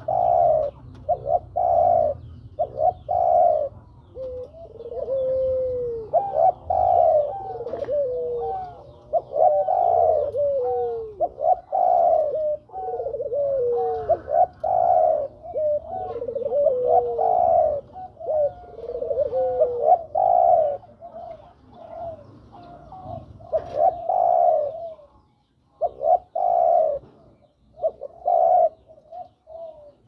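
Spotted dove (tekukur) cooing over and over: a steady run of short, rough coo phrases, some ending in a falling note, with a brief pause near the end. It is the dove's call to a female, the kind used to lure other doves.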